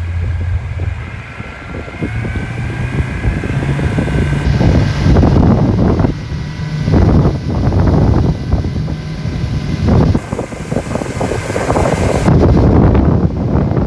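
Boat motor running steadily, with wind buffeting the microphone in strong gusts.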